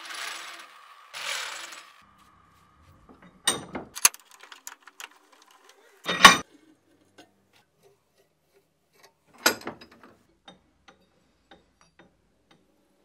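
Steel workshop parts being handled and fitted. A scratchy noise with a steady tone runs for the first two seconds, then come scattered metal knocks and light clicks, the loudest about six seconds in.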